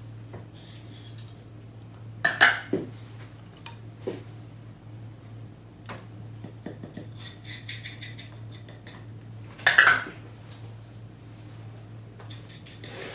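Small ceramic spice saucers clinking and tapping against a glass mixing bowl as spices are tipped into the potato mixture, with two louder clinks about two and a half seconds and ten seconds in. A low steady hum runs underneath.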